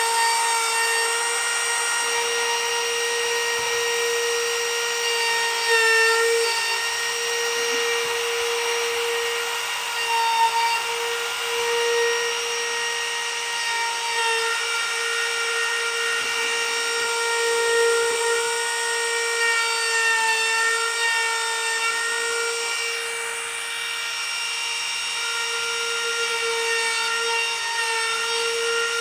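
Cordless Milwaukee laminate trim router running at full speed with a steady high whine, its bit shaving wood screw plugs flush. The tone dips and wavers briefly a few times as the bit cuts.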